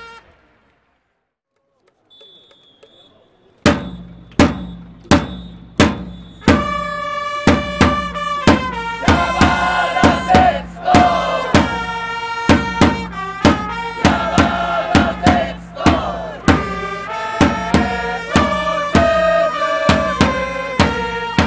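A baseball cheering band of trumpets and a drum, with the crowd in the stands. After a short pause, single drum beats come in roughly every 0.7 seconds about four seconds in. The trumpets then take up a cheering-song melody over the drumming, with fans chanting along.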